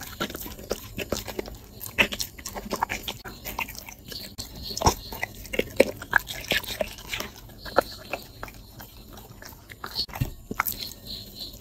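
A dog chewing and crunching food close to the microphone, with many sharp, irregular crunches as it bites through quail eggs.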